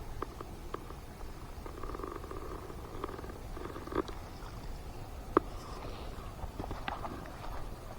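Fishing reel being cranked to retrieve a topwater lure: a low steady whir with scattered light clicks, the loudest clicks about four and five and a half seconds in.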